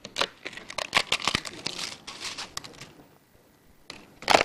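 Crisp toasted pita bread crackling as it is broken up by hand and dropped into a glass bowl: a quick run of crackles for the first two and a half seconds, a short pause, then another burst of crackling near the end.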